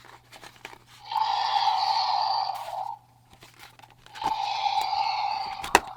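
Plastic toy packaging being handled and pulled at, making two scraping, crinkling stretches of about two seconds each, with a sharp click near the end.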